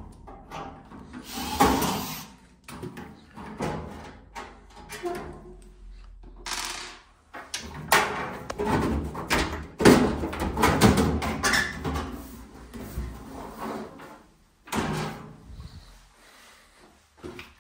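Front casing of a Baxi Solo HE gas boiler being unscrewed and lifted off: an irregular run of clicks, knocks and scraping of the panels against the boiler housing, loudest about ten seconds in.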